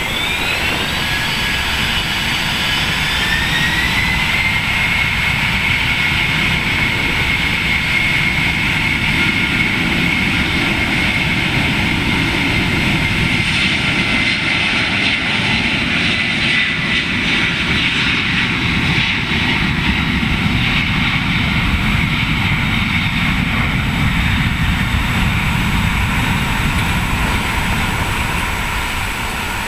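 Boeing 767 cargo jet's twin turbofan engines spooling up: a high whine rises over the first few seconds, then holds steady over a loud roar at high thrust, as for the takeoff run.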